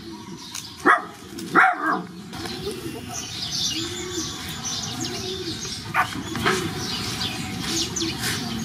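Puppies yelping: two loud, sharp yelps about a second in, then a string of short, whimpering cries, with another yelp at about six seconds.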